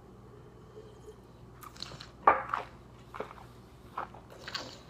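Wet mouth sounds of a taster working a sip of wine around the mouth: a handful of short smacks and slurps, the loudest a little past two seconds in.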